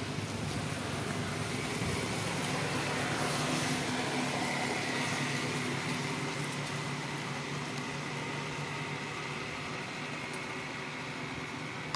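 Steady motor-vehicle noise, like nearby road traffic, with a low hum. It swells about three to five seconds in and then eases off.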